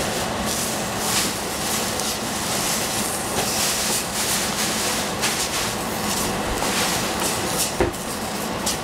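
Broccoli and cauliflower sizzling and steaming in a hot stainless steel saucepan, a steady crackling hiss, stirred with a wooden spatula. A couple of sharp knocks of the spatula against the pan come near the end.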